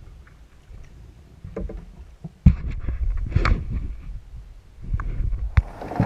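Knocks and thumps on a fishing kayak over a low rumble, the loudest knock about two and a half seconds in and another sharp one near the end.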